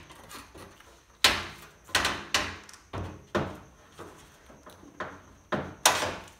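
Sharp knocks and clatters of a front-loading washing machine's sheet-metal front cabinet panel and door being handled while the door lock is disconnected, about eight separate knocks spread over a few seconds.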